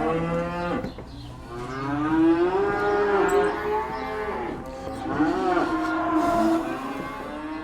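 Cattle in sale-barn holding pens mooing: long, drawn-out calls that rise and fall in pitch, one about a second in lasting several seconds and more overlapping ones from about five seconds in.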